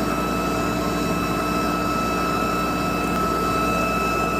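Cleaver-Brooks boiler's gas burner and combustion-air blower running steadily at low fire: an even roar with a constant high whine through it.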